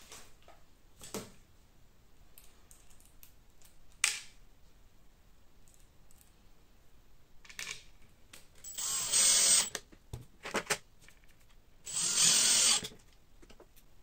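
Makita cordless driver running in two short bursts of about a second each, driving two small M3 screws into 3D-printed plastic parts. A single sharp click comes a few seconds before the first burst.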